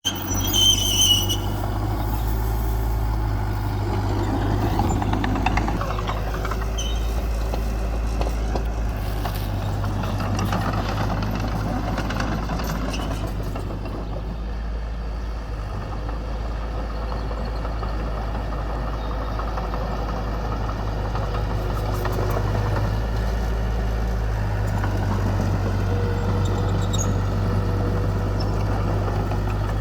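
Diesel engines of heavy earthmoving machinery running steadily with a deep rumble. A brief high squeal comes in the first second, and the engine note rises and falls a little several seconds in.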